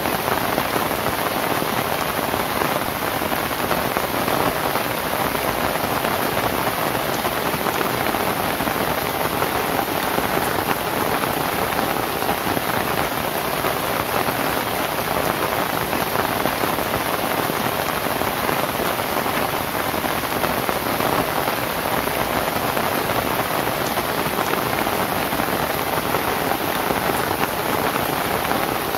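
Steady rain falling on a palm-leaf thatch roof and the surrounding leaves: an even, unbroken rain sound with no thunder.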